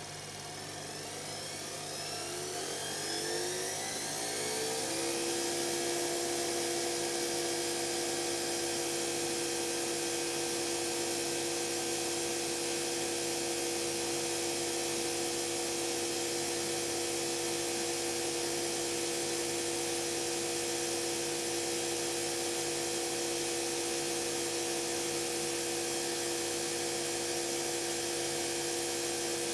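Electra ELEC1647A3 washing machine's brushed motor winding the drum up to speed, a whine rising in pitch for about five seconds and then holding steady. The motor's commutator is damaged and the motor is failing.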